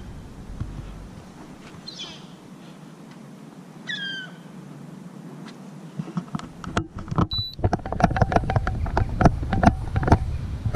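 Two short, falling gull calls, about two seconds apart, over a low outdoor hiss. After a brief cut the sound grows louder, with wind rumble on the microphone and a run of clicking, rustling handling knocks.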